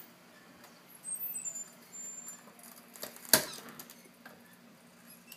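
A door swinging shut under an overhead door closer, with faint squeaks as it moves, then one sharp knock about three seconds in as it meets the frame with its latch taped down.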